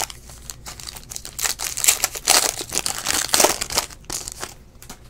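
Foil wrapper of a Panini Black Gold basketball card pack being torn open and crinkled by hand: a dense crackle that is loudest in the middle and stops about four and a half seconds in.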